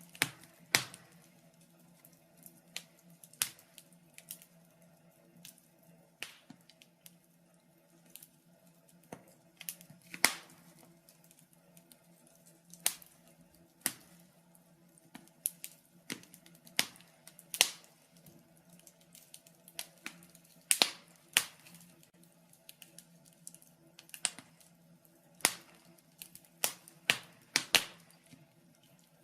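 Wood fire in a fireplace crackling, with irregular sharp pops and snaps from the burning logs, a few of them much louder than the rest.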